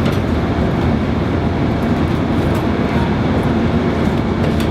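Diesel passenger locomotive running while standing at the platform, a steady loud rumble.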